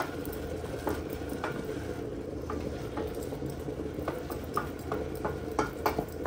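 Wooden spoon stirring chopped mushrooms, onion and garlic as they sauté in olive oil in a stainless steel pot, with scattered scrapes and knocks of the spoon against the pot that come more often in the second half. Under it a pot of water boils steadily on the next ring.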